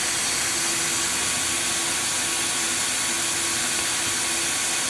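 Spindle of a 1996 Brother TC324 drill and tapping center running steadily at 1500 RPM: an even whir with a faint tone that comes and goes.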